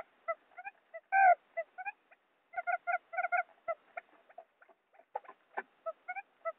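Quail lure call: quick runs of short, clipped notes in small clusters with short gaps, and one louder, longer note about a second in.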